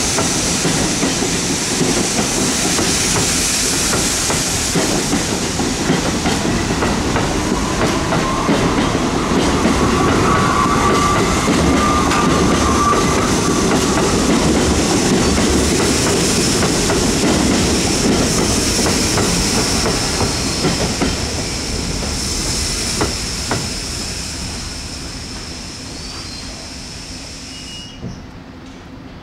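R68 subway train running over the track switches, its wheels rumbling and clacking on the rails, with a steady high whine and a brief faint wheel squeal near the middle. The noise fades in the last several seconds as the train moves away.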